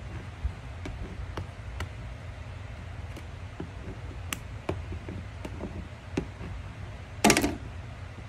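Faint scattered ticks and rubs of a felt-edged squeegee being pressed over a vinyl decal on car window glass, over a steady low hum. Near the end, a short loud crackle as a corner of the transfer tape is pulled up off the decal.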